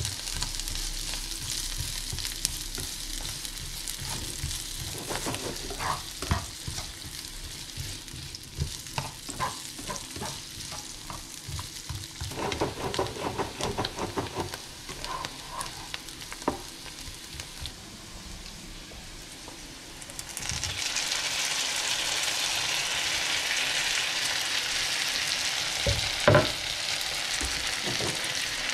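Diced onion sizzling in oil in a frying pan, stirred with a spatula that scrapes and taps against the pan. About twenty seconds in, the sizzle jumps suddenly louder and hissier as chopped tomatoes go into the hot pan, with a sharp knock near the end.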